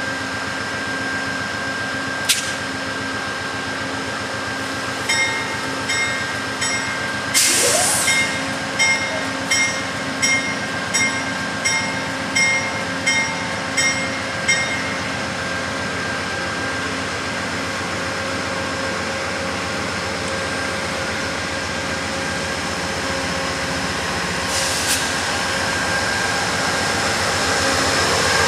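Amtrak GE P42DC Genesis diesel locomotive running with a steady engine hum as it draws near, growing louder toward the end as it comes alongside. For about ten seconds, starting about five seconds in, its bell rings steadily, roughly once every three-quarters of a second.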